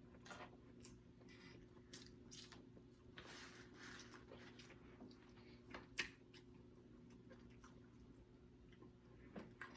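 Faint chewing, with soft mouth clicks and a few small sharp ticks, one a little louder about six seconds in, over a low steady room hum.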